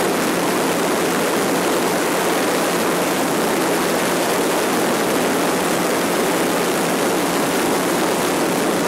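Steady aircraft cabin noise in flight: an unchanging rush of engine and airflow noise with a faint constant hum underneath.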